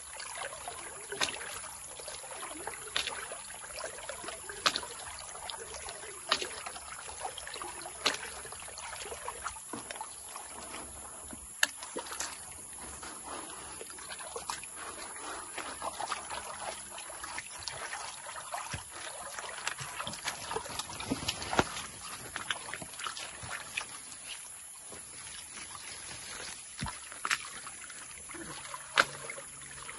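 Water sloshing and splashing as a gold pan is swirled, tilted and dipped in a shallow stream to wash sediment off, with sharp splashes every second or two.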